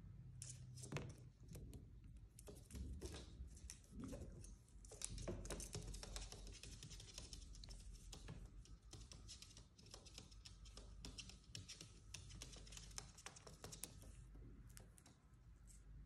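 Faint, irregular clicking and tapping, several clicks a second at times: an Indian ringneck parakeet's claws and beak on a hard shelf as it walks and pecks. The clicks fade out near the end.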